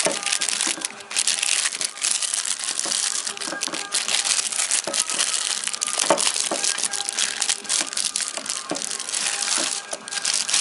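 Clear plastic packaging bag crinkling and rustling as it is handled. It goes on without a break, with louder crackles at the start and about six seconds in.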